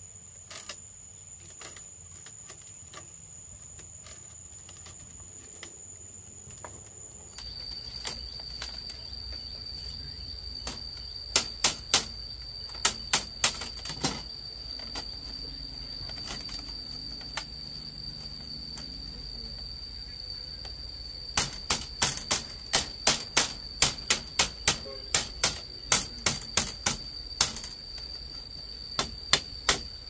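Thin split-bamboo strips clicking and clacking against each other and the bamboo floor as they are woven into a mat and pressed into place, in irregular runs of sharp clicks, mostly in the second half. A steady high insect drone runs behind and drops in pitch about seven seconds in.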